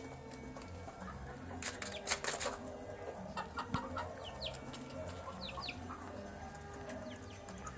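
Chicks peeping with many short, high, falling chirps while they feed, mixed with lower clucking. A brief loud rustle comes about two seconds in.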